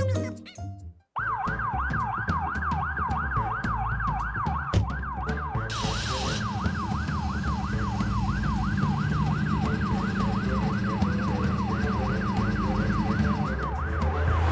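Police car siren, starting about a second in after the music cuts off, sweeping rapidly up and down about three times a second over a low vehicle hum.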